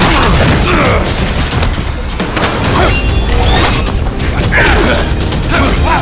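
Action-film score with a heavy, steady low beat, overlaid with added fight sound effects: scattered punch and body-hit impacts, short sweeping whooshes and crashes.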